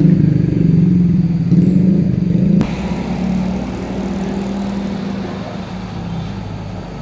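Motor vehicle engine running with a steady low hum in slow traffic. A sharp click about two and a half seconds in is followed by a drop in level, and the engine hum carries on more quietly.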